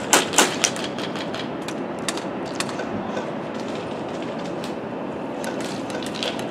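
Airsoft guns firing: a quick string of sharp shots, about four a second, stops under a second in. After it come scattered fainter shots over a steady background hiss.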